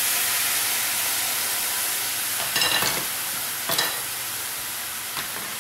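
Frying pan sizzling steadily, a even hiss, as jaggery syrup goes into hot ghee-roasted flattened rice (aval) and banana. Two brief clatters about a second apart come midway.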